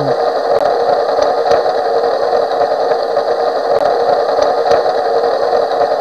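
A front-wheel-drive car driven through a turn, with a steady engine and road drone and a few faint, sharp clicks from the front end: the clicking typical of a worn outboard CV joint.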